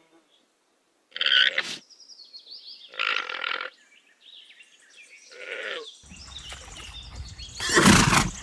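Alpaca calling in short bursts, four calls a second or two apart, the last the loudest, with a low wind-like rumble from about six seconds in.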